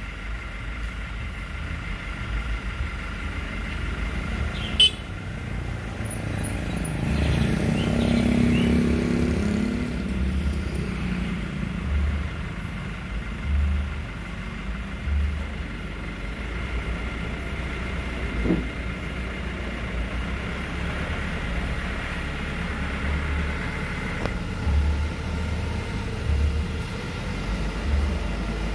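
Old truck's engine running steadily, getting louder for a few seconds about a quarter of the way in. A sharp click comes about five seconds in, and low thumps recur throughout.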